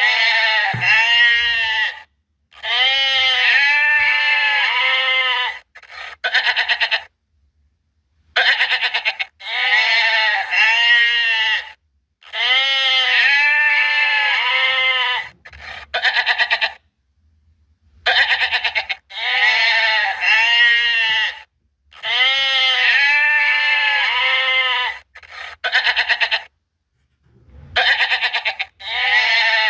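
Goats bleating: a series of loud, quavering bleats, each lasting one to three seconds, with short silences between them.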